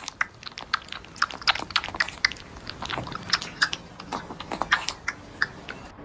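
Close-up chewing and crunching: rapid, irregular sharp crunches, several a second, as a pet chews food.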